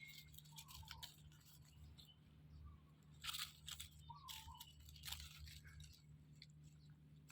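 Faint, irregular crunching, like a puppy chewing food, with a few louder crunches about three to five seconds in, over a low steady hum.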